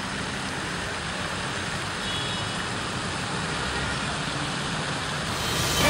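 Steady outdoor traffic noise, with music coming in just before the end.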